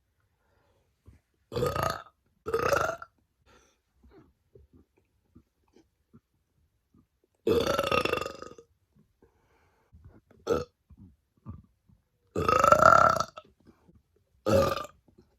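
A woman burping on command: a series of about six loud belches with pauses between them, two short ones in quick succession, then a long drawn-out one, a brief one, another long one and a short one near the end.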